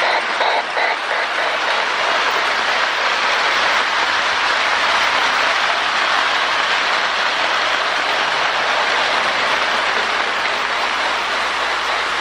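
Lionel MPC Berkshire model steam locomotive running on its track, its electronic steam sound board giving even chuffs about three a second that blur about a second in into a steady hiss over the running of the train.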